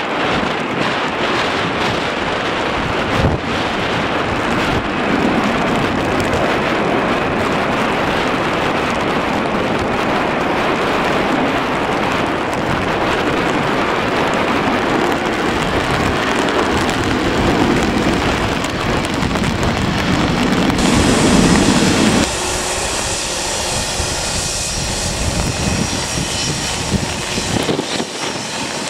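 Jet airliner engine noise from a British Airways Airbus A319 landing on a wet runway, mixed with storm wind buffeting the microphone and heavy rain drumming on an umbrella held over it, a steady dense rush. About three quarters of the way through, the deep rumble drops away and a brighter hiss of rain and wind takes over.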